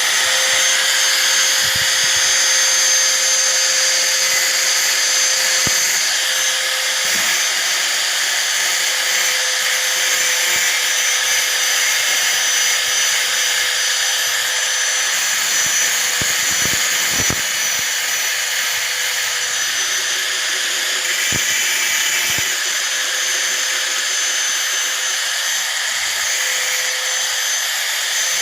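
Electric hand angle grinder running at full speed with a steady high whine and a dense rasp, grinding down a rusty steel nail.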